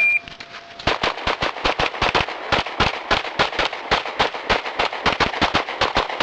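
Electronic shot-timer start beep, then a rapid string of pistol shots from about a second in, several a second and varying in loudness.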